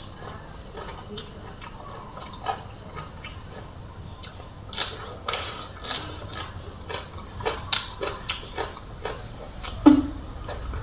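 Close-miked wet chewing and lip smacking of a person eating rice noodles with water spinach and shrimp by hand: a run of short wet clicks, thickening from about halfway through, with one louder smack near the end.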